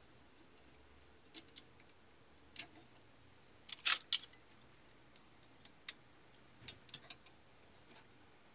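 Light clicks and taps of plastic wobblers being hung on the wire holders of a metal lure-painting rack, the loudest pair about four seconds in.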